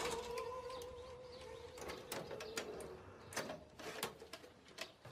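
The last sung note of an opera-style piece slides down and is held, fading away over the first two to three seconds. Faint scattered clicks follow.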